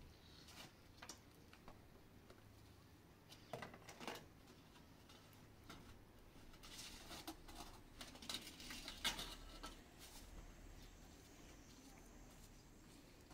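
Mostly near silence, with scattered faint clinks and knocks of plates and bowls being handled and set down. The knocks come in small clusters, the loudest near the two-thirds mark.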